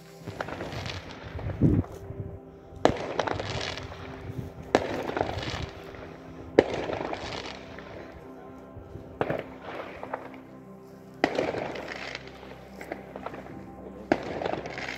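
New Year's Eve fireworks going off: a series of sharp bangs about every two seconds, each trailing off into crackling, with music playing underneath.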